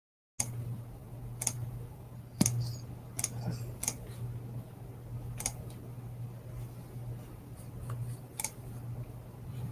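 A live microphone comes on about half a second in, picking up a faint steady low electrical hum and scattered sharp clicks, about seven in all, like someone working a computer before speaking.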